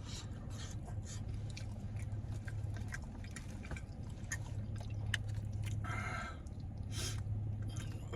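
Close-up chewing and wet mouth clicks of a person eating a meal of rice, butter shrimp and garlic naan, with irregular small smacks over a steady low hum.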